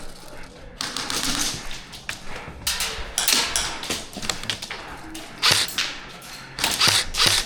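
Airsoft guns firing as a string of sharp clicks and snaps, mixed with rustling and knocking from a player moving with gear; the loudest rustling bursts come about halfway through and near the end.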